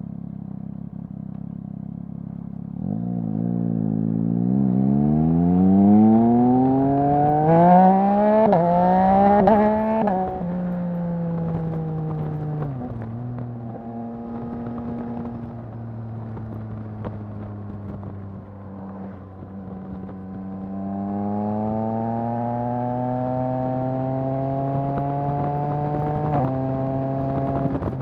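Yamaha MT-09's 890 cc three-cylinder engine through a Mivv full-system exhaust, accelerating with rising pitch through quick back-to-back quickshifter upshifts, then easing off as the pitch falls. It runs steady for a while, climbs again, and shifts once more near the end.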